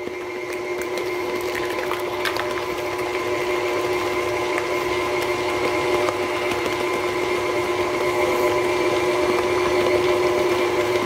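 KitchenAid tilt-head stand mixer running steadily, its motor giving a constant whine as the beater mixes an egg into a creamed butter and molasses batter. A few light clicks come about two seconds in.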